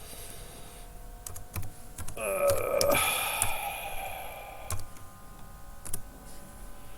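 Laptop keyboard typing: scattered keystroke clicks. A louder humming tone rises in the middle for about two and a half seconds.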